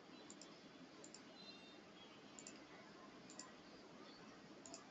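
Near silence with faint double clicks, about five of them spaced a second or so apart.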